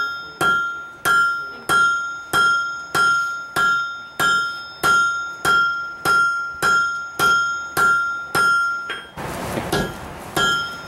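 Blacksmith's hammer striking hot steel bar stock on an anvil at a steady pace, about one and a half blows a second, each blow ringing out clearly from the anvil. About nine seconds in the blows stop for a second of rushing noise, then resume.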